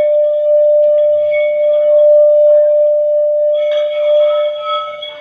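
Singing bowl sounding one steady, ringing tone with fainter higher overtones above it; more overtones join about three-quarters of the way through.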